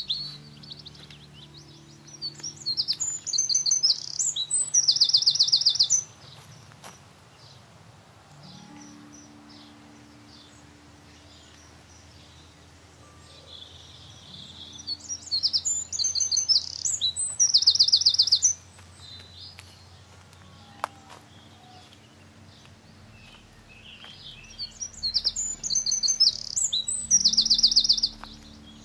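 A small songbird singing three loud, high-pitched song phrases about ten seconds apart, each a few seconds long and ending in a fast trill.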